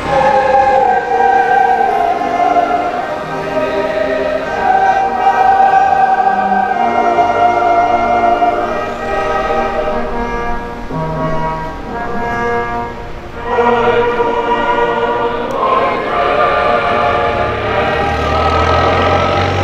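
Choir singing a slow, solemn anthem in long held notes, with a short break about thirteen seconds in before the next phrase starts.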